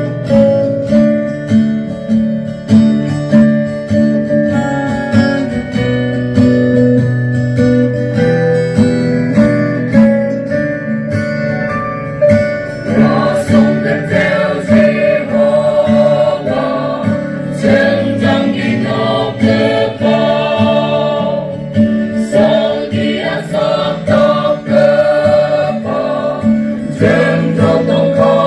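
Gospel hymn on strummed acoustic guitar; a choir of voices comes in singing about halfway through.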